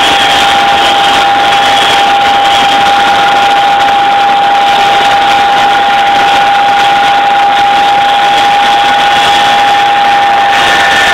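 Loud, steady cabin noise inside a Boeing CH-47 Chinook helicopter in flight with its rear ramp open: engine and rotor noise with a steady high whine from the transmission. A second, higher whine joins near the end.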